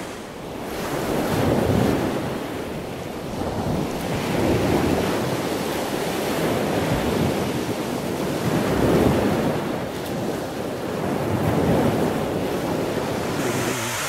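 Sea waves washing at the shoreline, swelling and easing every few seconds, with wind rumbling on the microphone.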